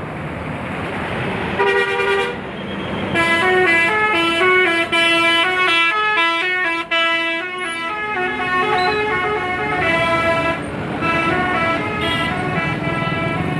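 Indonesian bus 'telolet' multi-tone horn playing a quick tune of changing notes. A short blast comes about two seconds in, then longer runs of melody with brief pauses, over road noise.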